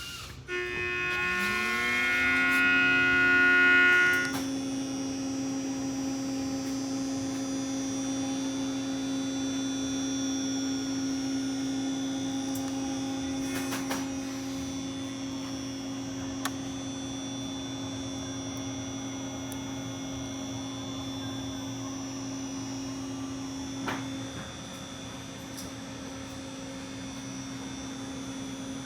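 An electric motor spins up, its pitch rising over about a second, and then runs with a steady hum and a thin high whine. It is loudest for the first four seconds, and a couple of faint clicks come later.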